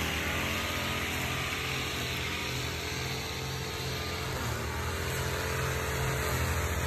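Backpack brush cutter's small petrol engine idling steadily.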